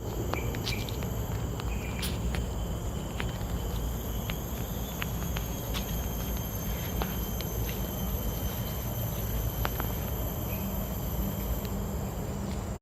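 Steady high-pitched insect trilling over a low rumble, with scattered faint clicks.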